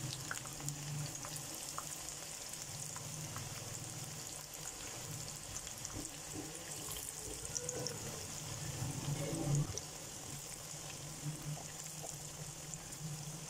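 Gram-flour pakoras deep-frying in hot oil in a wok: a steady sizzle with small crackles and pops, over a low hum.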